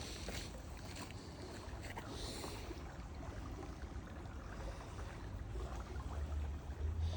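Wind rumbling on the microphone, gusting stronger near the end, with a few faint scuffs of footsteps in the first couple of seconds.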